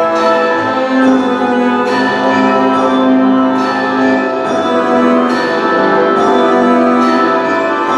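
Orchestral-style music playing through homemade PVC pipe speakers and picked up by a camcorder in a large, reverberant room, with sustained notes and a regular accent about every second and a half.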